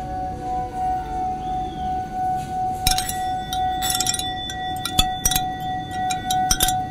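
Ambient music: a steady ringing drone with slow falling glides near the start. About three seconds in, sharp glassy clinks and chime strikes begin, each ringing on after the hit.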